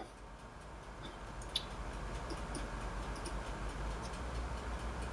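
Quiet background hiss and low hum with a few faint, light clicks, the clearest about one and a half seconds in.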